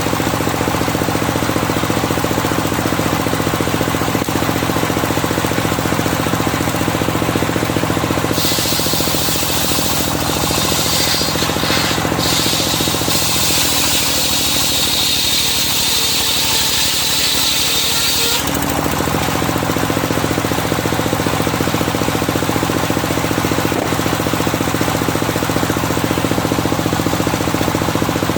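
Engine-driven circular sawmill running steadily; from about 8 to 18 seconds in the blade cuts through a medang log, adding a high whine that wavers in pitch, which stops when the cut ends.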